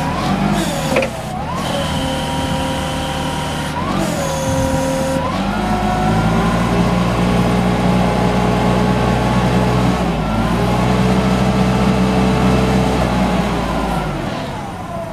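Yale GLP065T forklift's LPG engine running while the forks are raised. Its pitch rises and falls a few times in the first five seconds, then holds steady at a higher speed until near the end.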